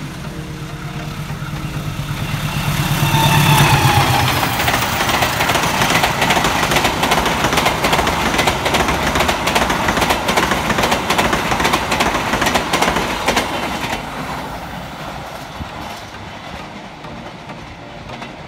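Diesel locomotive hauling passenger coaches passes close by: its engine hum swells to a peak about three and a half seconds in and drops in pitch as it goes by. A long run of rapid wheel clicks over the rail joints follows as the coaches pass, fading away over the last few seconds.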